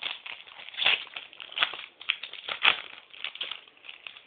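Hockey card pack wrapper crinkling and trading cards being handled, in a few irregular louder bursts.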